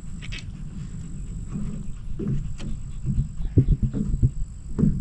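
Wind rumbling on the microphone, joined from about two seconds in by a run of irregular low thumps that grow louder, with a faint steady high whine throughout.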